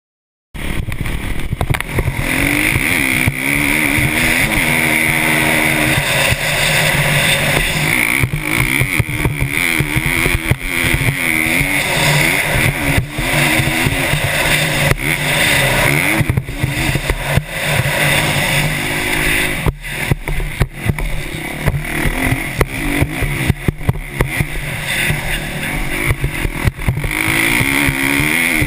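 KTM 350 SX-F's single-cylinder four-stroke engine revving up and down repeatedly as the dirt bike is ridden hard on a motocross track, heard through a helmet-mounted camera. It starts abruptly about half a second in.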